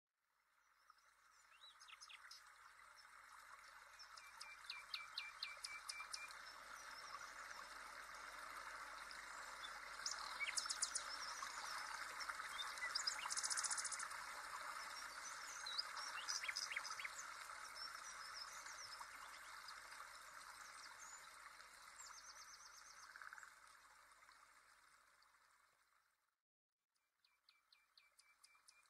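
Birds chirping and trilling over a steady rush of running water, a nature ambience that fades in over the first couple of seconds and cuts out for about a second near the end before resuming more faintly.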